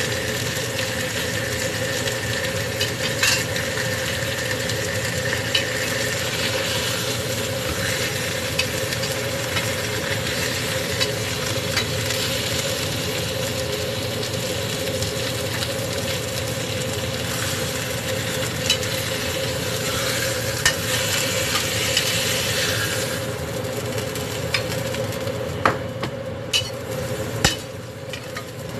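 Food frying in oil in a pan, a steady sizzle, while it is stirred with a utensil that clicks against the pan now and then, more often near the end. A steady hum sounds under it.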